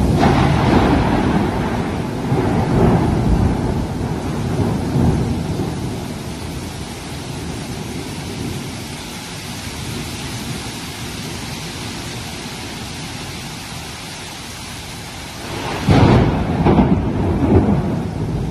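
Heavy tropical rain pouring steadily in a thunderstorm. Thunder rumbles and fades at the start, then a sudden loud thunderclap breaks near the end and rolls on.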